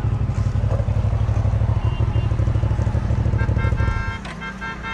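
Motorcycle engine running steadily at close range, cut off abruptly about four seconds in. A run of short, high beeps starts just before the cut.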